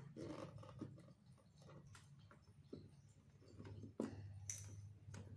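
Faint, scattered plastic clicks and taps as the opened casing of an all-in-one PC is handled, with a sharper click about four seconds in.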